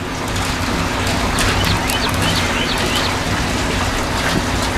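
Steady hissing noise with a low hum underneath, and a small bird chirping a quick string of short high notes from about a second and a half in to about three seconds in.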